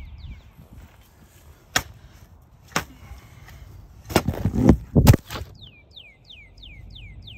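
Spade chopping into sod and soil: a few sharp strikes, the loudest bunched together about four to five seconds in. Near the end a bird sings a quick run of falling whistled notes, about four a second.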